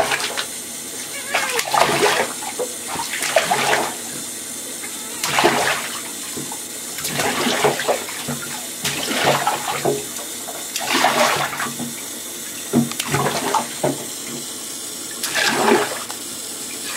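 Water running from a hand-held shower head into a bathtub, with irregular splashes as a small child plays in the water.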